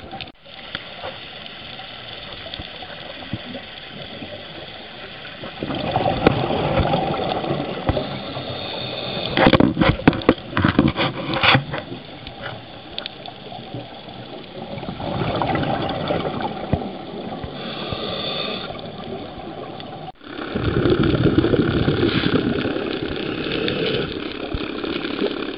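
A scuba diver's exhaled regulator bubbles heard underwater, coming in a few rushing bursts of a couple of seconds each, with a cluster of sharp clicks near the middle.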